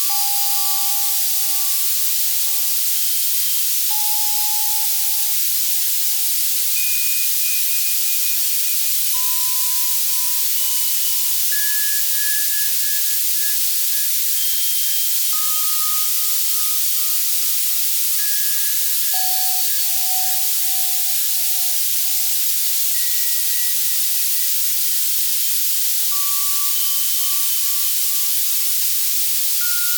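Steady synthesized white noise from an Access Virus C synthesizer, a bright even hiss, with soft synthesized bell tones at scattered pitches sounding one at a time every two or three seconds and fading out: a tinnitus-masking sound.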